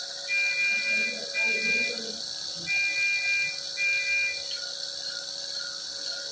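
Medical patient monitor alarm: steady high electronic beeps, each under a second long, sounding in two pairs, followed by a few short lower beeps, over a steady hiss.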